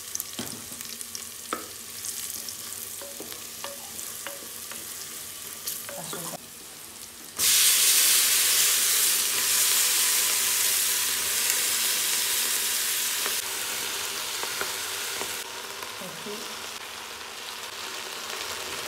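Spices and green chillies frying in oil in a pressure cooker pot, with a wooden spatula scraping and tapping as they are stirred. About seven seconds in, chopped taro flower stalks go into the hot oil and the sizzle suddenly turns much louder, then gradually eases off.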